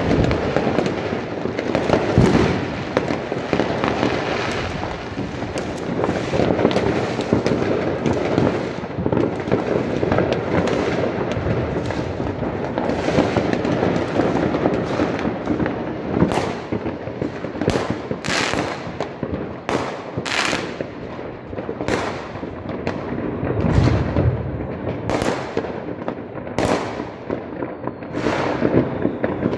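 New Year's Eve fireworks: many rockets and firecrackers going off at once in a dense, continuous crackle, with separate sharp bangs standing out more and more in the second half.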